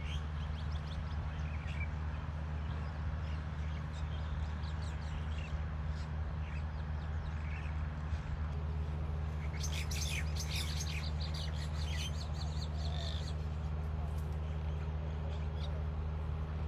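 Birds chirping outdoors over a steady low background rumble, with a dense burst of rapid, high chirps about ten seconds in that lasts about three seconds.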